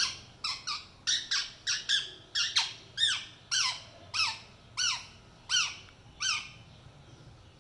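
Green ringneck parrot (rose-ringed parakeet) squawking, a run of about fifteen harsh, arching calls that come quickly at first, slow down, and stop about six and a half seconds in: the bird is protesting at being touched.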